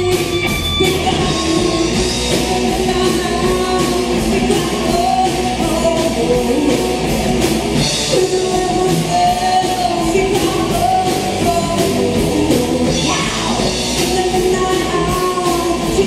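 Live rock band playing a song with a singer, over a steady drum beat.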